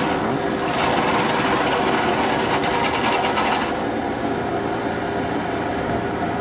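Small paddy tractor's engine running steadily as its cage wheels and rear-mounted water-channel ditching head churn through flooded rice-field mud. A rhythmic splashing hiss of thrown mud and water runs from about one to nearly four seconds in.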